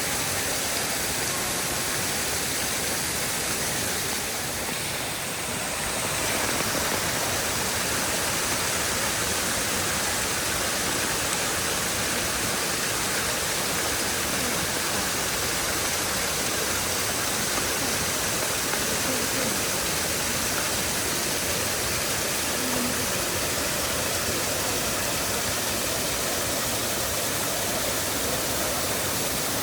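Shiraito Falls, a wide curtain of many thin streams of water falling over a low rock face, making a steady rushing of water that dips slightly about five seconds in.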